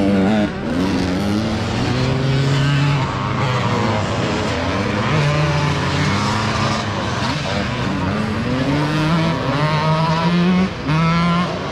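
Several motocross bikes racing, their engines revving up and dropping in pitch again and again as the riders shift and work the throttle.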